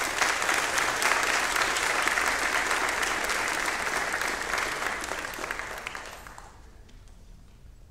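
Congregation applauding, dying away about six seconds in.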